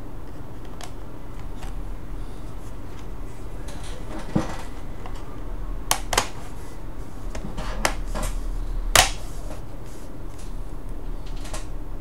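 Scattered sharp clicks and taps of hands working on a laptop's plastic case and internal parts, about five in all, the loudest about nine seconds in, over a steady low hum.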